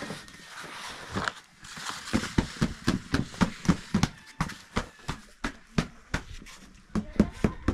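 A wooden stick knocking again and again on a cloth spread over the floor, about three knocks a second, with cloth rustling in the first couple of seconds.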